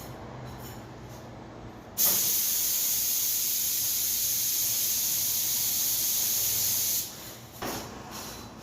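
CNC cutting machine giving a loud, steady hiss that starts suddenly about two seconds in and cuts off about five seconds later, over a low running hum.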